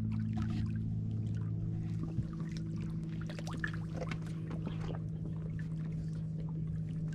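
Motorboat engine droning steadily on the water, with a few faint clicks over it.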